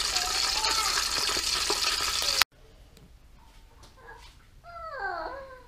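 Hot oil in an electric deep fryer sizzling steadily around a basket of fried okra, cutting off abruptly about halfway through. A quieter room follows, with a few short falling vocal calls near the end.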